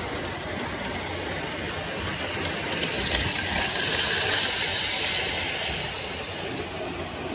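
O gauge model train, a CSX diesel pulling tank cars on three-rail tinplate track, running with a steady rolling rumble. The sound swells as the train passes close about three seconds in, with a quick run of clicks from the wheels over rail joints, then eases as it moves off.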